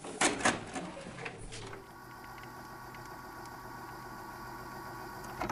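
VHS cassette going into a video recorder: a quick run of mechanical clicks and clatter from the loading mechanism, then a steady hum with hiss from the deck, and a sharp click near the end.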